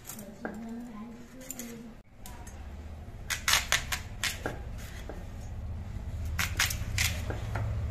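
Peeled sweet pumpkin being sliced into small pieces on a boti, the fixed upright curved blade of a Bengali kitchen. Crisp cutting strokes come in two short clusters, about three seconds in and again about six and a half seconds in, over a low steady hum.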